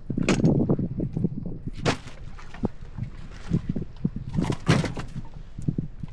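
Irregular knocks and clangs, with a few sharper bangs about 2 s in and near the end, as freshly caught barramundi are put away in the boat.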